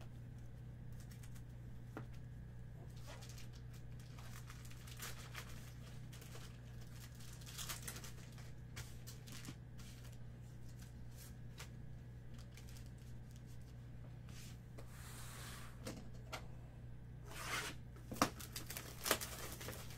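Trading cards and a cardboard card box being handled on a table: faint scattered rustles and clicks over a steady low hum, with louder rustling and knocks in the last few seconds as the box is handled.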